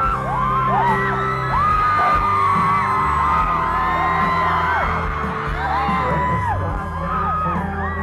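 Live country band playing loud through the arena sound system, with fans close to the microphone screaming and whooping in short high shrieks over it.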